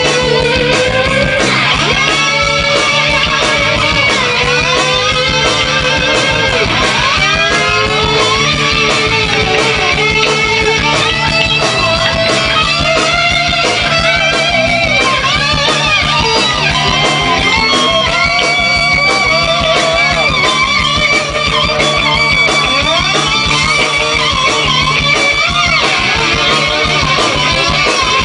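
Live rock band playing, with overdriven electric lead guitar soloing in bending, sliding notes over bass and drums.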